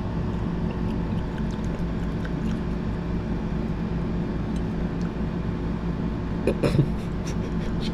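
Steady low hum in the room, with faint clinks of a metal fork against a ceramic plate and a short cough about six and a half seconds in.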